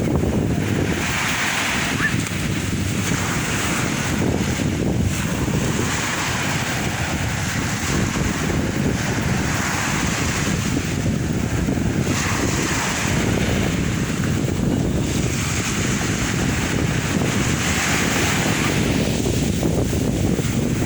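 Sea surf washing in, its hiss swelling and fading every few seconds, under a steady low rumble of wind on the microphone.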